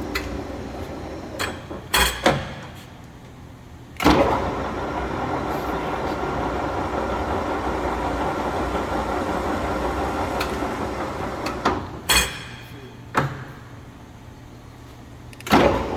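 Mori Seiki engine lathe's headstock gearing and spindle running at low speed, with sharp clacks of the controls as it is stopped and started. It runs quieter for a moment after a clack about two seconds in, then after another clack about four seconds in runs steadily for about eight seconds, stops with a clack, and starts again near the end.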